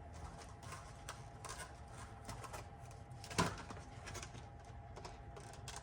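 Quiet handling of the cardboard and plastic packaging of a trading-card collection box, with faint rustling and one sharp knock about three and a half seconds in.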